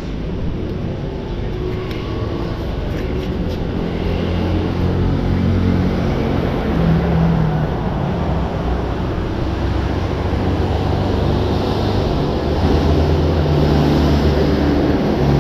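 Motorcycle engine running under way, its pitch climbing and shifting with the throttle, over a steady rush of wind and road noise.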